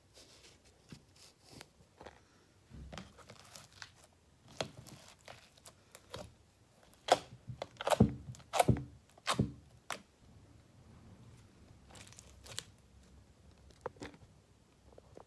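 Clear slime being stretched and squished by hand, with a sticky tearing, crackling sound. A run of louder popping crackles comes near the middle.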